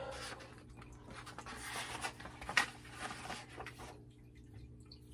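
Soft rustling of a paperback picture book's paper pages being handled and turned, with a small tap about two and a half seconds in, over a steady low hum.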